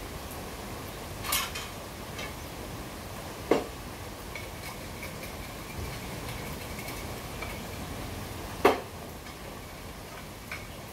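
Outdoor ambience: a steady hiss with three sharp clinks or knocks, about one and a half, three and a half and nearly nine seconds in, the last the loudest. A faint thin high tone runs through the middle.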